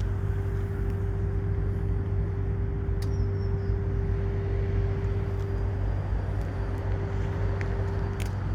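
A car engine idling steadily: a constant low hum with a steady higher drone over it, and a couple of faint clicks.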